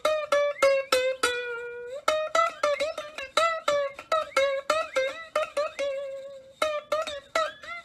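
Background music: a quick plucked-string melody, several notes a second, with one longer held note early on and a short pause near the end.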